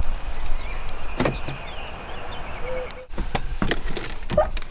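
A car door being opened and someone getting into the driver's seat: a sharp clunk about a second in, then a run of clicks and knocks near the end, over a low rumble in the first part.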